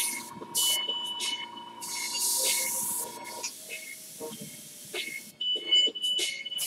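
Airbrush spraying acrylic paint in a series of short hisses, with one longer hiss about two seconds in, stopping about five and a half seconds in.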